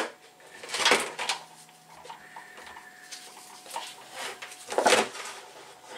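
Metal clunks and scrapes from a milling machine's removed gearbox cover plate, gears still attached, being handled and set down in a pan: a sharp knock at the start, then two longer clattering scrapes, about a second in and near the five-second mark, with small clicks between.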